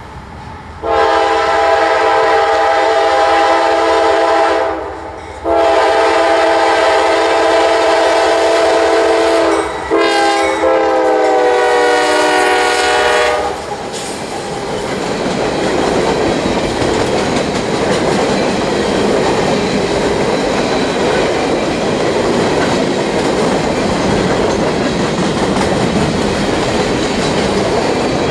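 CSX diesel freight locomotive's air horn blowing the grade-crossing signal: two long blasts, a short one, and a last long one whose pitch drops as the locomotive passes. Then the steady rumble and wheel clatter of hopper cars rolling by.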